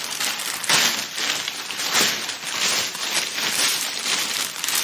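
Packaging crinkling and rustling as a package is handled and opened, with many quick crackles.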